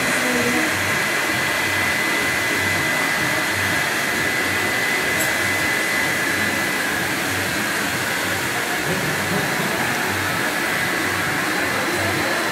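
Electric air blower inflating a transparent water walking ball: a steady rushing hiss with a faint high whine, heard from inside the ball. It cuts off right at the end.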